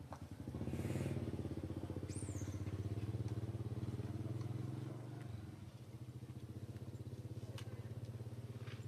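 A small engine running steadily with a fast, even pulse. It swells in the first few seconds and eases off a little about five seconds in. A brief high falling chirp comes about two seconds in.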